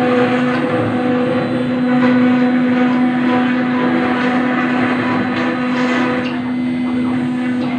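CNC router spindle running steadily as its bit cuts into granite: a constant high whine over a rough grinding noise.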